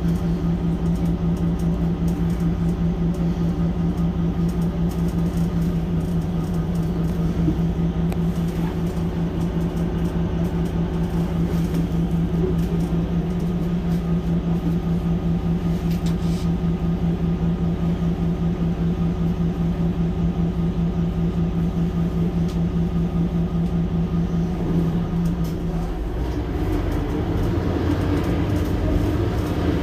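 Mercedes-Benz Citaro C2 Hybrid city bus running with a steady engine drone. About 26 s in the drone changes and a different engine note rises toward the end.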